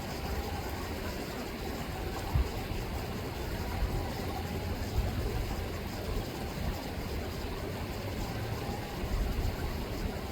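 River water running with a steady rushing noise under an uneven low rumble, with a few brief low thumps.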